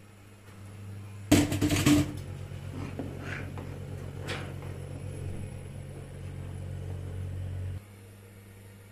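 A loud clatter of metal cookware about a second in, then a metal spoon stirring soup in a pot and clinking against the pot a few times. A steady low hum runs underneath and cuts off suddenly near the end.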